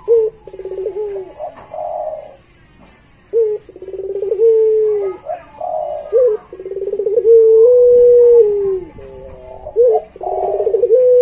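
Caged Barbary dove (puter pelung) cooing over and over: each call is a quick rolling stutter running into a long drawn-out coo that drops in pitch at the end. This long coo is the trait prized in a puter pelung.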